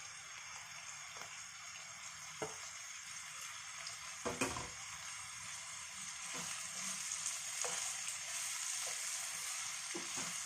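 Chopped onions and bell peppers sizzling in hot oil in a frying pan over high heat, with a wooden spatula knocking and scraping against the pan; the loudest knocks come a little before halfway, and the sizzle grows louder in the second half as the vegetables are stirred.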